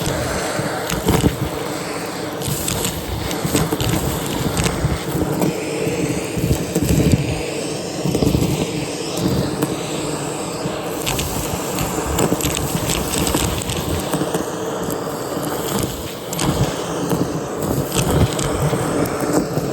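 Vacuum cleaner running with its dusting brush attachment being worked over a surface: a steady motor hum under irregular scratchy clicks and rubbing from the brush and the debris it picks up.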